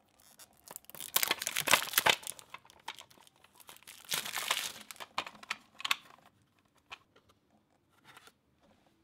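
Cellophane shrink-wrap crinkling and tearing as it is peeled off a new TDK cassette case, in two main bursts, with a few light clicks near the end.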